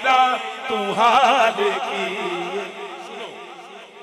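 A man's solo voice singing a Punjabi devotional kalam into a microphone, in wavering, ornamented runs; the line is held and fades away toward the end.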